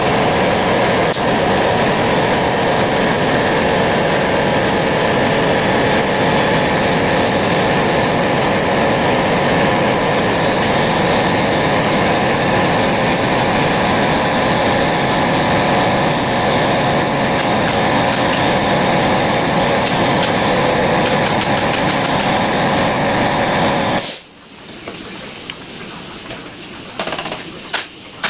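Shop air compressor running steadily, then cutting off about 24 seconds in as it reaches pressure. A few sharp snaps of a pneumatic nail gun follow near the end.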